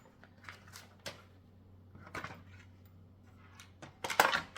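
Handling noise from bike repair stand parts and small hardware being worked by hand: scattered light clicks and taps, then a louder short rattle about four seconds in.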